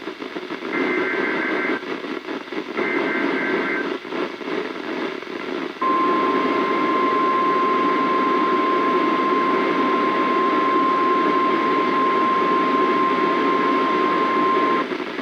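NOAA Weather Radio alert coming through a weather radio receiver's speaker: two one-second squawks of SAME digital header data, a couple of seconds of radio hiss, then the steady 1050 Hz warning alarm tone, held for about nine seconds before it cuts off.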